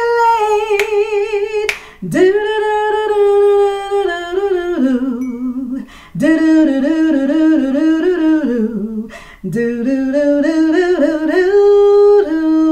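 A woman singing a cappella. She sings the word 'delayed' and then carries on with wordless runs and held notes with vibrato, in several phrases with short breaks between them.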